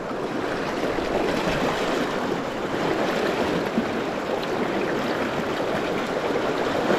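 Fast river water rushing through a shallow rapid, heard close up from mid-stream: a steady rush.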